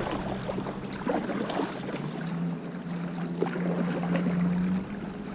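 Small irregular splashes and knocks of water against a kayak hull. A low steady hum sits under them from about two seconds in until near the end.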